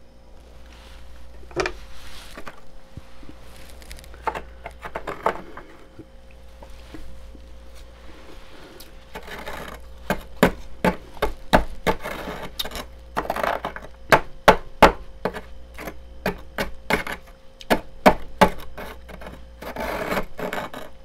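Metal spoon scraping and digging into thick freezer frost: a run of sharp, crunchy scrapes that come thick and fast about halfway through, with a longer rasping scrape near the end, over a steady low hum.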